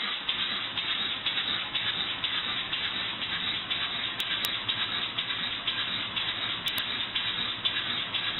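Homemade compressed-air engine running, its air exhaust hissing in a rapid, even rhythm of puffs.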